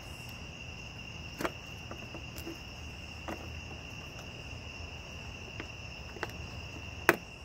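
A few short plastic clicks and knocks as wiring connectors are worked off the back of a BMW E46 xenon headlight, the sharpest near the end. Under them runs the steady high trill of crickets.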